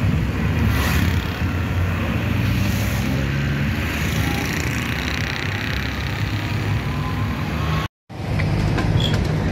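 Motor vehicle engine running steadily at close range with road and traffic noise from a slow-moving convoy of cars, vans and motorcycles. The sound drops out for a moment about eight seconds in.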